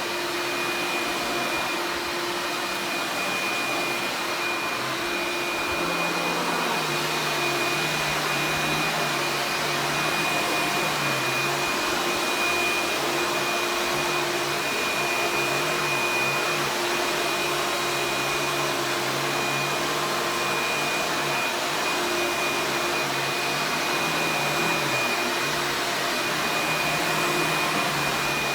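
A 1990s vacuum cleaner running steadily, its motor whining on one high tone over a rush of airflow. From about six seconds in, a lower hum wavers up and down.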